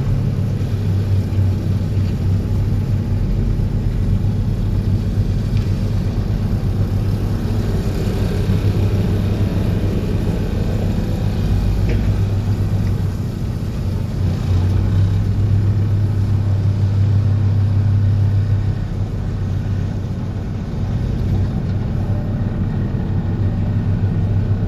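Excavator-mounted vibro hammer driving a steel sheet pile: a loud, steady low vibrating hum over the excavator's engine, dipping briefly twice.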